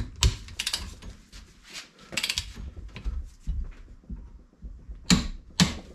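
Sharp metallic clicks and knocks from tightening the swivel pin nut on a classic Mini front hub with a torque wrench set to 110 newton metres. They come in short clusters near the start and about two seconds in, then two louder knocks close together about a second before the end.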